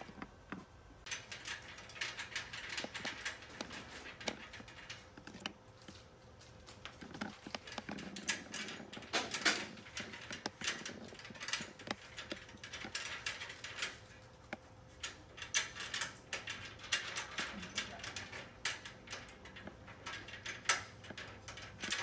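Irregular metal clicks, knocks and scraping as a 1-inch bolt is worked through the panel-to-panel connector at the base of two metal wall-panel frames, with a few sharper knocks spread through.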